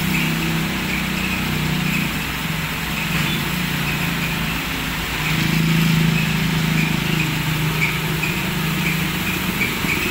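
Engine idling steadily, with the hiss of a pressure-washer water jet spraying against the bus.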